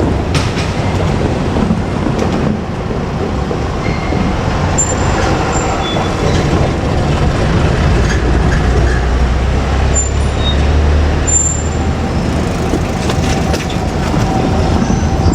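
KiHa 47 diesel railcar running along the track, its engine and wheels on the rails sounding steadily. A deeper rumble swells from about seven seconds in, then eases off after about eleven seconds.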